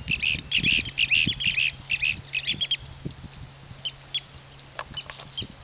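Birds calling: a quick run of short, harsh repeated calls for about the first three seconds, then a few scattered sharp calls.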